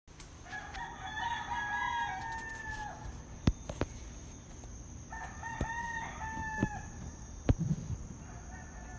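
Roosters crowing in turn: two long crows, then a fainter one beginning near the end. Several sharp clicks or knocks fall between the crows and are the loudest sounds, over a steady faint high-pitched tone.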